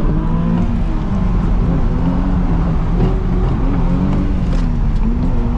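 Nissan 350Z's 3.5-litre V6 heard from inside the car, revs rising and falling as it drifts through the corners.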